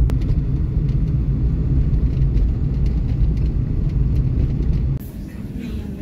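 Steady low rumble of road and engine noise heard inside a moving car's cabin. About five seconds in it cuts to the quieter running hum of a train carriage.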